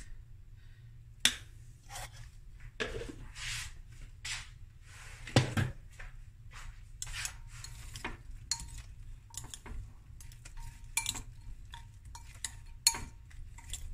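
Metal spoon clinking and knocking against a glass mixing bowl as pineapple chunks are tossed in spice, irregular sharp clicks with two louder knocks, about a second in and about five seconds in, and a busier run of small clinks later on.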